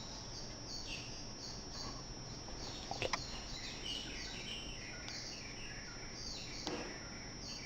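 Faint, rapid chirping of a small bird: short calls, each dropping in pitch, repeating a few times a second. A couple of light clicks about three seconds in.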